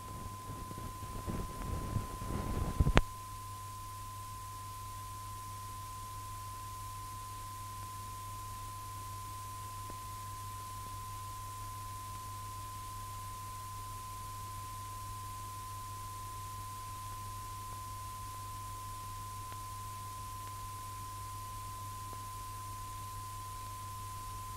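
A steady pure test tone at about 1 kHz over a low mains hum on an old film soundtrack. Low rumbling noise fills the first three seconds and stops with a sharp click, after which only the tone and hum remain, unchanging.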